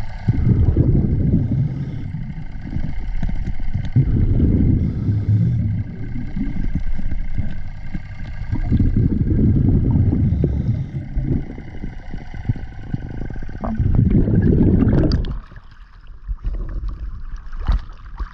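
Diver's exhaled bubbles rumbling past an underwater camera in deep bursts a few seconds apart, the rhythm of scuba breathing. About fifteen seconds in the rumbling stops as the camera breaks the surface, leaving lighter water splashing.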